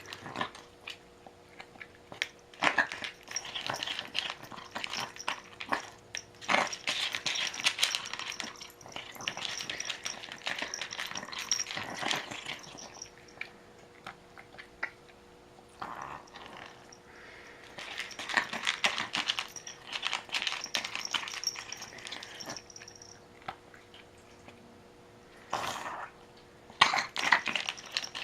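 A pet eating: spells of quick chewing and clicking sounds with short pauses between them, and one sharper noise near the end.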